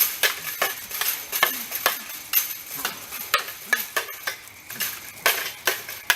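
Something metal being banged over and over, sharp clanging strikes about two or three a second with a bright ring.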